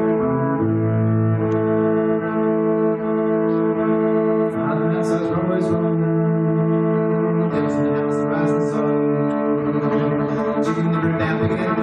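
Bowed electric violin playing music: long held notes layered over a low sustained bass part.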